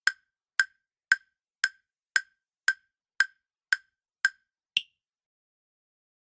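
Quiz countdown-timer sound effect: ten sharp pitched ticks, about two a second, the last one higher in pitch to mark that the answer time is up.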